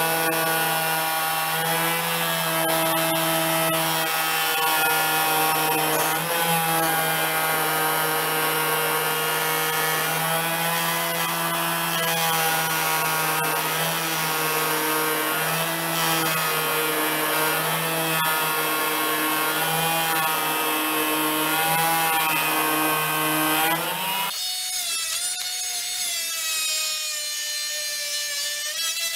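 Dremel Multi-Max oscillating multi-tool running as it slowly cuts into a round log, a steady buzz. About 24 seconds in the low buzz stops and the tool runs on with a higher, wavering whine as the blade comes out of the wood.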